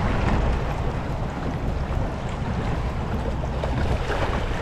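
Steady wind rushing over the microphone, with waves lapping.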